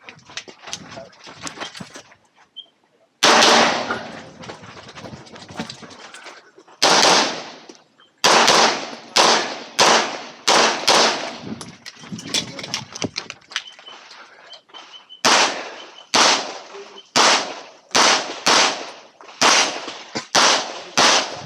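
Handgun shots firing a practical-shooting stage. The first loud shot comes about three seconds in, then a long string of quick shots, often in pairs or groups under a second apart, with short pauses between groups. Fainter cracks sound between them.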